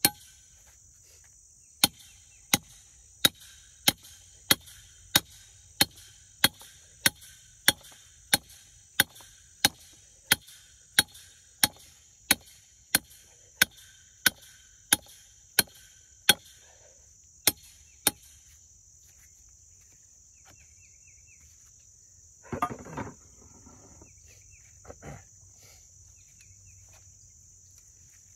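Hammer blows on a metal rod being driven into hard, dry ground: about 25 steady strikes, roughly three every two seconds, stopping about 18 seconds in. A steady high insect drone runs underneath, and a short scuffling rustle comes about 23 seconds in.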